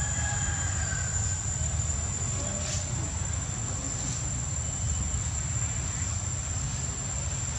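Insects, crickets or cicadas, giving one steady high-pitched drone over a low steady rumble.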